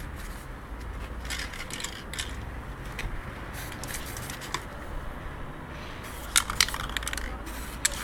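Aerosol spray paint work: short hisses of spray in the first half, then a few sharp metallic clinks from the spray cans being handled, the loudest about six and a half seconds in.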